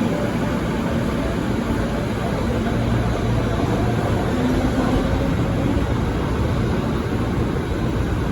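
Steady rumble and hiss of a Rio Metro series 4000 train at a station platform, with a few faint tones coming and going.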